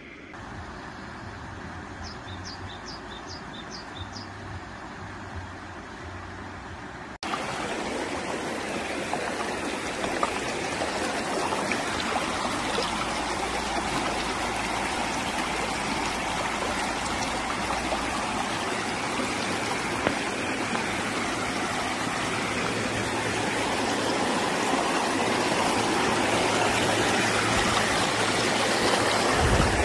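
Shallow stream water rushing and trickling over rocks, a steady dense splashing that starts abruptly about seven seconds in and grows a little louder toward the end. Before it, a quieter outdoor hush with a quick run of about five short high chirps.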